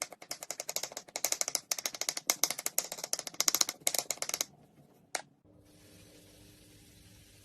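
Rapid dry clicking, close together and uneven, that stops about four and a half seconds in, with one last click just after. It gives way to a steady faint hiss with a low hum.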